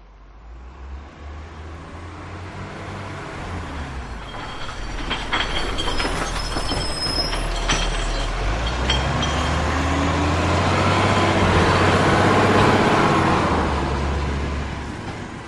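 Heavy truck driving past: the low engine rumble builds steadily, with rattling clanks and a few brief high squeals midway. It is loudest about twelve seconds in, then fades away.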